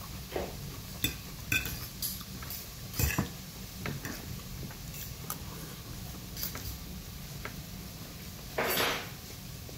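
Metal fork clinking and scraping against a plate of rice in scattered short clicks, with one louder, brief noisy sound near the end.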